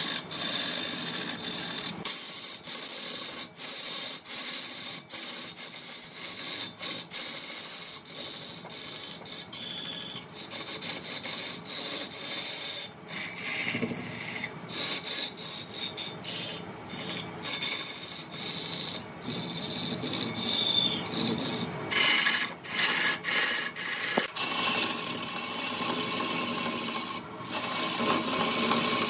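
Wood being turned on a lathe: a tool scraping the spinning wood with a steady hissing rasp that breaks off and starts again many times.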